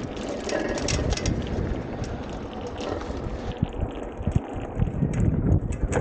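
Wind buffeting the microphone and tyres rolling over a gravel track on a moving electric off-road bike, with frequent small knocks and rattles from bumps.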